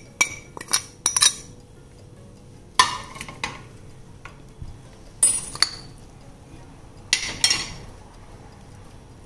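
Kitchen utensils and small containers clinking and tapping against a glass mixing bowl as ingredients are scooped in, several sharp clinks a second or two apart.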